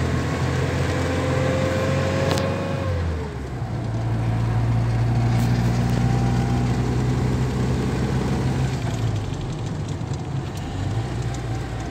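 GAZelle van's engine running under way, heard from inside the cab. Its pitch climbs slowly, then falls about three seconds in, as at a gear change, just after a click. It then runs steadily at lower revs.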